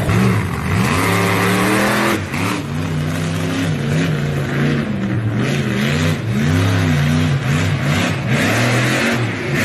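Engine of a custom tracked hot rod (a 1930s sedan body on tank tracks) revving up over the first two seconds, then being revved up and down again and again as the machine turns.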